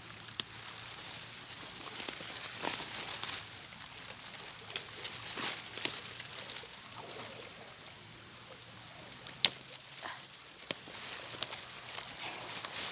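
Rustling of leafy wetland vegetation, with scattered sharp snaps and clicks as plant shoots are handled and picked, over a steady high outdoor hiss.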